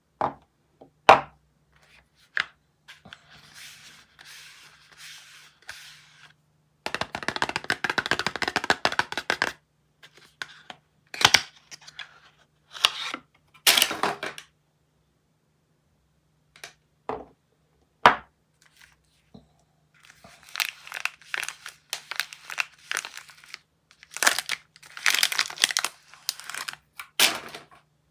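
Soap bars being unwrapped by hand: wrappers crinkling and tearing in long rustling spells, broken by a few sharp clicks and cracks.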